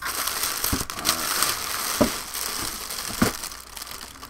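Packing material in a cardboard shipping box being rustled and crinkled by hand, with a few sharp knocks, about three, as the contents are pulled about.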